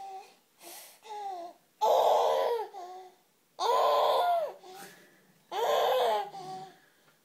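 A seven-month-old baby's voice: a few short, quieter sounds, then three long, loud squealing vocal sounds about two seconds apart, each dropping in pitch at its end.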